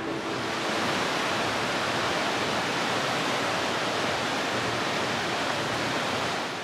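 Rushing water, a steady even rush that fades out near the end.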